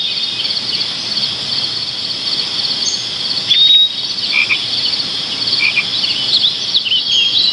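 A steady, high-pitched, rapidly pulsing chorus of calling frogs and insects, with scattered short chirps and one louder brief chirp a little over three and a half seconds in.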